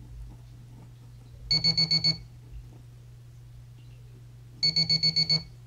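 Garrett Pro-Pointer AT pinpointer giving its metal-detect alert, two short bursts of rapid high beeps about ten a second, as a metal button is brought within range of its tip.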